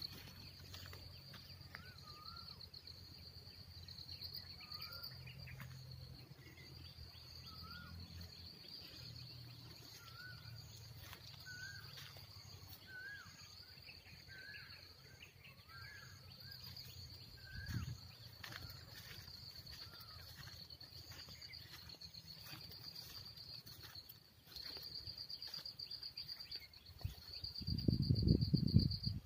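Crickets trilling steadily in a high, pulsing chirr, while a bird repeats a short rising-and-falling whistled note about once a second through the first half. Near the end a loud low rumbling noise takes over.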